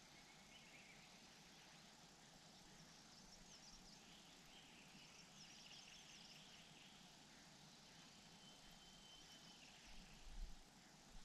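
Near silence: faint steady background hiss with distant small birds chirping now and then, and a low bump near the end.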